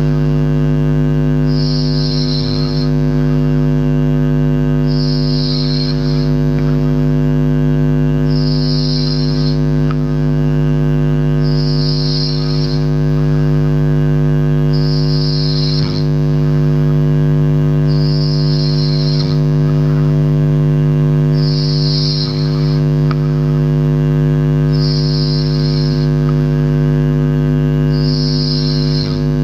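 Snoring: a hissing breath about once every three seconds, over a loud steady hum with many overtones.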